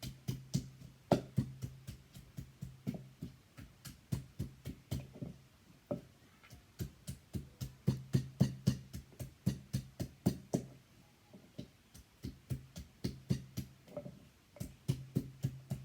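A knife chopping long green beans on a chopping board: quick, even knocking strokes, about three a second, with two short breaks.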